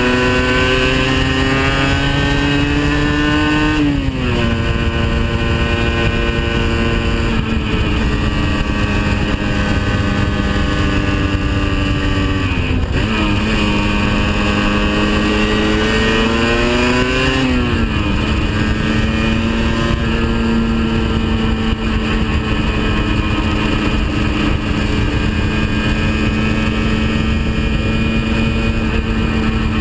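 Aprilia RS 50's 50 cc two-stroke single-cylinder engine heard onboard while riding, with wind rush. The engine pitch climbs for the first few seconds and drops sharply about four seconds in, dips and climbs again in the middle, falls once more, then holds a steady pitch through the second half.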